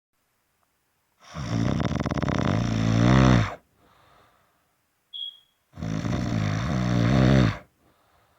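Loud snoring: two long snores about four seconds apart, each growing louder before it stops. There is a faint breath out after the first and a brief high whistle just before the second.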